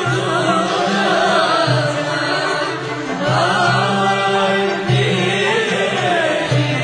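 Background music: a wavering chanted vocal line over a low drone that swells about every second and a half.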